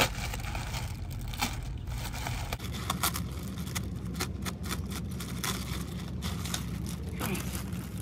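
Plastic packaging crinkling and tearing in rapid, irregular crackles as it is pulled open by hand to unwrap a replacement radiator hose, over a steady low rumble.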